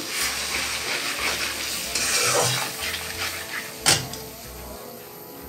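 Spice paste sizzling in hot oil in a frying pan, a splash of water just added to keep it from burning, while a steel spatula scrapes and stirs it. A sharp metal clink just before four seconds in.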